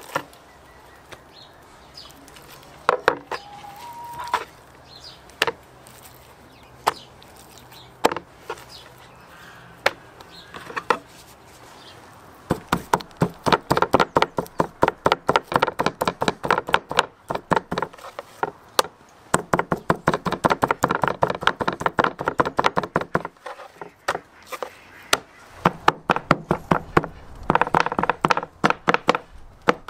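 A heavy kitchen knife tapping rapidly against pork steaks on a wooden cutting board to tenderize them, several knocks a second in long runs through the second half, with short pauses. Before that, a few scattered knocks from the knife and board.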